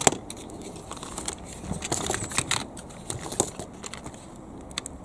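Plastic parts of a Bruder John Deere 5115M toy tractor clicking and knocking together as a trimmed black plastic piece is pressed down over the motor in the chassis. There is a sharp click at the start and a cluster of louder knocks around two seconds in.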